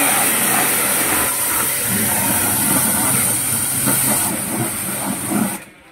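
Shakti S5 1900 W electric high-pressure car washer spraying a jet of water against a car's door panel and wheel: a loud, steady hiss of spray over the hum of the pump motor. It cuts off suddenly shortly before the end as the trigger is released.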